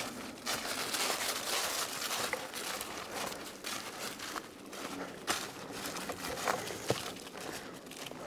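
Footsteps crunching and rustling through a thick layer of dry fallen leaves on the forest floor, with scattered sharp crackles.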